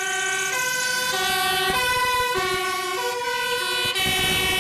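Fire engine's two-tone siren, switching between a high and a low note about every half second.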